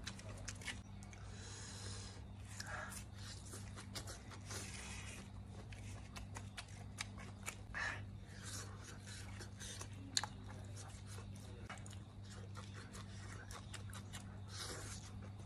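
Close-up eating sounds: biting into and chewing grilled food, with many short clicks and smacks, over a steady low hum.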